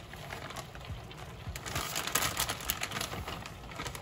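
Crackling and rustling of shredded cheddar cheese being shaken out of a plastic bag into a pot of hot milk, a patter of many small ticks.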